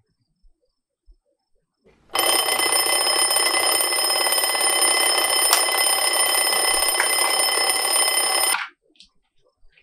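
Small alarm clock ringing loudly and continuously. It starts about two seconds in and cuts off suddenly after about six seconds, when it is switched off.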